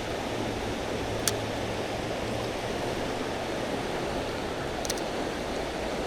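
Steady rushing of river water, with a sharp click about a second in and a quick double click near the five-second mark.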